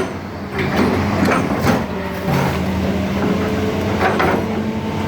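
Hitachi excavator's diesel engine running steadily, its note stepping up about two seconds in, with scattered metallic clanks and rattles from the machine working.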